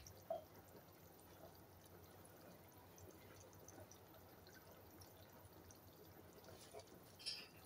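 Near silence: a lidded pot of aloo gosht curry simmers faintly on a low gas flame, with soft scattered pops over a low hiss.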